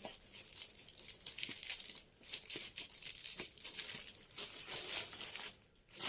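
Packaging crinkling and rustling as it is handled, with a few faint clicks.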